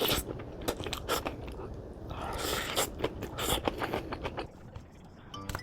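Close-up crunching bites and chewing of crisp vegetable bibimbap: a string of sharp, crackly crunches with a few louder bursts in the middle. Music comes in near the end.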